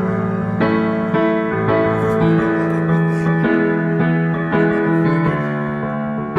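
Instrumental piano passage of a song, with sustained chords and notes struck about every half second and no singing.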